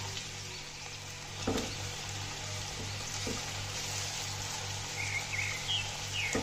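Finely chopped onions sizzling as they fry in hot oil, a steady hiss, with a few short knocks, likely from a stirring spoon against the pot.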